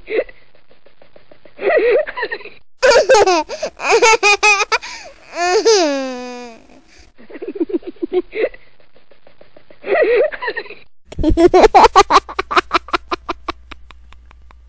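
A baby laughing in bursts: high-pitched giggling from about three seconds in that ends in a falling squeal, a quieter spell, then a fast run of laughs near the end.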